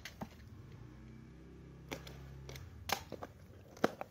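Plastic parcel wrap and packing tape being cut with a utility knife and pulled off a small cardboard box: crinkling with several sharp clicks and crackles, the sharpest near the end.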